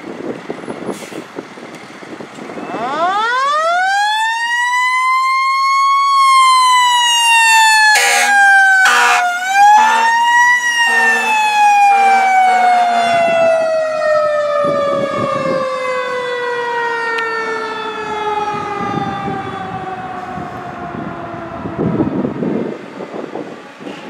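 Fire engine's siren winds up in a rising wail over a few seconds, then slowly falls. About eight and nine seconds in it is broken by two short horn blasts. It rises once more, then winds down in pitch over more than ten seconds. The truck's engine rumbles at the start and swells again near the end.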